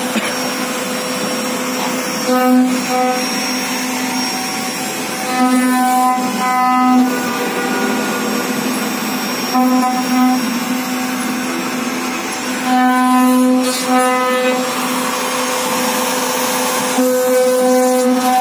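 CNC router spindle running at speed with its cutter carving a relief pattern into a wooden panel: a steady high whine over the hiss of cutting. The whine swells for a second or two every few seconds.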